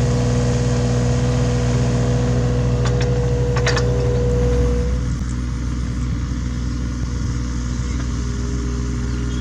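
Hitachi Zaxis 33U mini excavator's diesel engine running steadily while it digs, with a steady higher whine over the engine hum. There are a few sharp knocks between three and four seconds in. About five seconds in the whine stops and the engine runs a little quieter.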